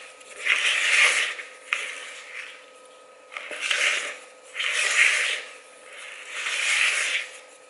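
Silicone spatula scraping and squelching through thick chocolate batter in a plastic mixing bowl, in slow strokes about every second or two.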